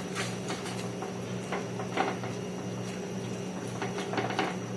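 Scattered light knocks and scrapes of a utensil against a cooking pot as the lemongrass is pushed under the soup, over a steady low hum.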